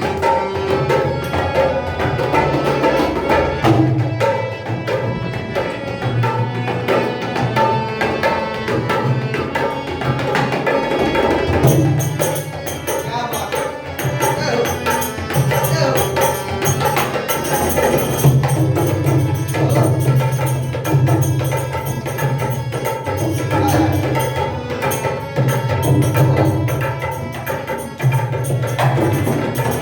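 Indian music played live, with tabla keeping a steady beat under the other instruments. Brighter, busier percussion joins about twelve seconds in.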